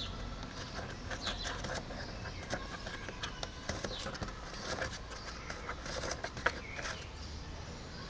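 Small plastic clicks and scrapes as the dust cap is unscrewed and pulled off a car's LPG filler valve, with one sharper click about six and a half seconds in. Birds chirp in the background.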